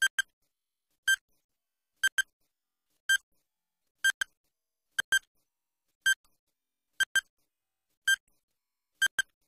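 Electronic countdown-timer beeps: short, high beeps about once a second, several of them in quick pairs, ticking off the seconds of a quiz answer timer.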